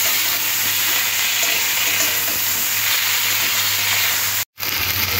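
Drumstick pieces, potatoes, onion and tomato sizzling steadily in hot oil in a metal kadai while a metal spatula stirs them. The sound cuts out for a moment about four and a half seconds in, then resumes.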